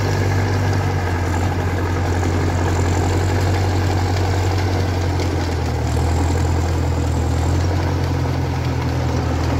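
Massey Ferguson 5480 tractor's diesel engine running steadily as it pulls a TIM KRB two-row beet harvester, with the harvester's machinery running alongside. The engine note shifts slightly about halfway through.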